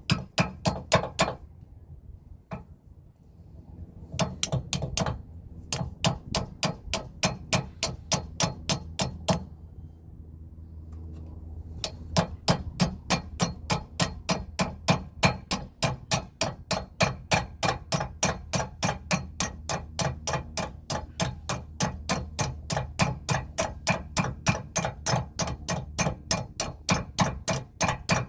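Hammer tapping a steel tow shackle pin into place against a mini sledge held as a backstop: quick, evenly spaced metal-on-metal taps, about three to four a second, with two pauses of a few seconds early on and near the middle.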